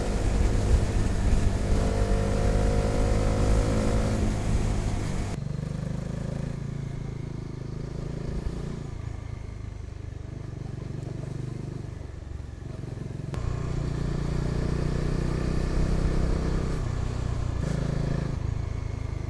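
Motorcycle engine running while riding, with a low wind rumble on the microphone. The engine note climbs over the first few seconds as the bike picks up speed, and the sound changes abruptly about five seconds and thirteen seconds in.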